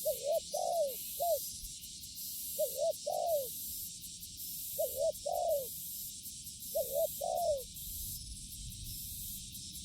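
Spotted dove (tekukur) cooing: four phrases of two to four arched, falling notes, one roughly every two seconds.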